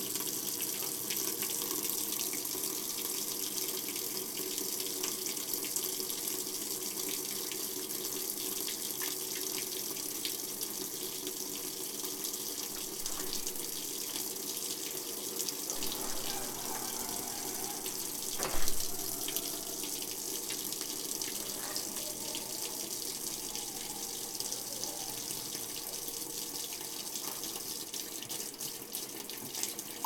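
Top-loading washing machine filling, water running steadily into the tub. A single knock sounds a little past halfway.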